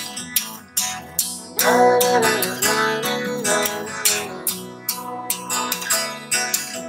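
Background music: acoustic guitar strumming in a steady rhythm, with a melody line coming in about a second and a half in.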